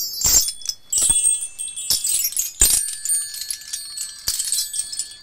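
High metallic chimes tinkling, like wind chimes: an irregular run of strikes, each ringing on, with a steady higher tone entering about halfway. It serves as a scene-change cue.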